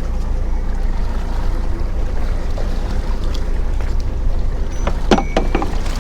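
Fishing boat's engine running with a steady low hum, with a few sharp knocks and a short clatter about five seconds in.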